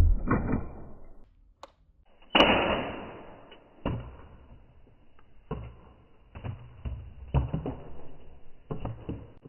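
Plastic toy guns and parts being handled, with irregular knocks and clatter. About two and a half seconds in there is one louder noisy burst that fades over about a second.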